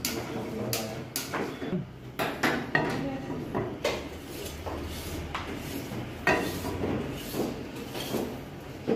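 A square ridged grill pan set down and shifted on the metal grate of a gas stove burner, giving a string of irregular metallic knocks and clatters, the sharpest a few seconds in and again past the middle.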